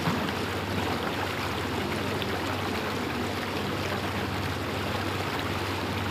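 Tour boat's motor running steadily under way, a constant low drone under the rush of water along the hull.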